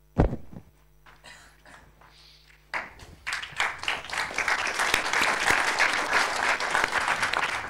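A single thump just after the start. Then, about three seconds in, an audience breaks into applause that carries on steadily.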